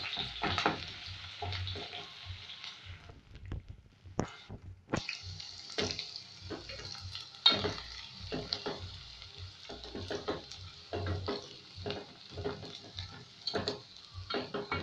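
Sliced onions sizzling in hot oil in an aluminium pot, stirred with a wooden spoon that scrapes and knocks against the pot about once or twice a second. The sizzle thins out briefly about three seconds in, then comes back.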